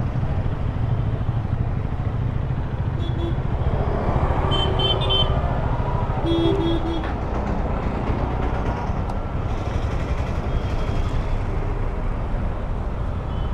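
KTM Duke 250 single-cylinder engine running steadily at low speed in street traffic. Several short vehicle horn toots sound in the first half.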